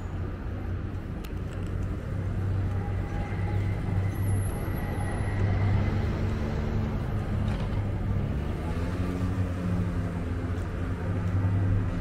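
Motor vehicle engine running close by, its pitch rising about halfway through and then holding steady, over a low street hum.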